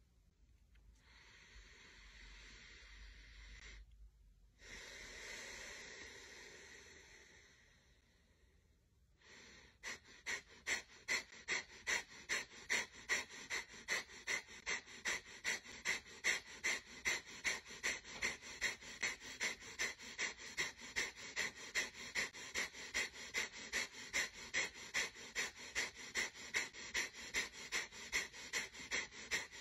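Kapalbhati breathing: a couple of long, slow breaths, then from about ten seconds in rapid, forceful exhalations through the nose in a steady rhythm of about two sharp puffs a second.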